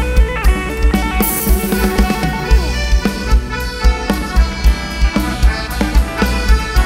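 Live band music with a drum kit keeping a steady kick-drum beat under sustained instrument lines, with no vocals.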